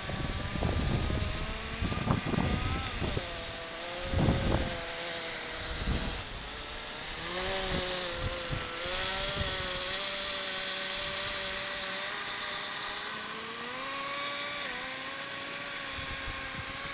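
Small nitro engine of a Traxxas Nitro Blizzard RC snowcat running with a high whine that rises and falls as the throttle is worked. Several low thumps come in the first six seconds, the loudest about two and four seconds in.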